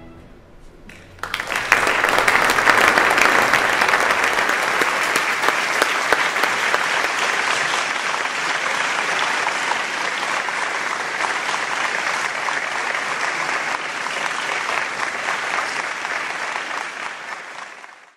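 Audience applauding: the clapping starts about a second in, holds steady, and fades out near the end.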